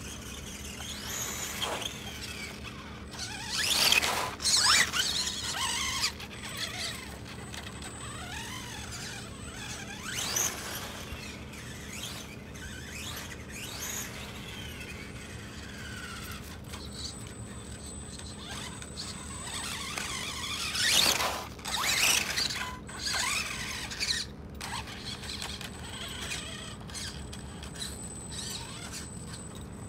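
Electric whine of an Orion dDrive 2700 kV brushless motor-and-ESC unit driving a Vaterra Twin Hammers RC rock crawler slowly, gliding up and down in pitch with the throttle. It is louder in bursts about 4, 10 and 21 seconds in.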